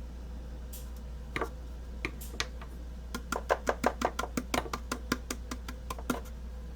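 Small plastic screw-on lid being unscrewed: a few separate clicks, then a quick run of light clicks, about five a second, for around three seconds.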